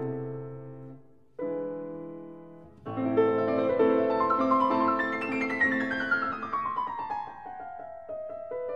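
Background piano music: chords that fade away, then from about three seconds in a flowing run of notes that falls steadily in pitch.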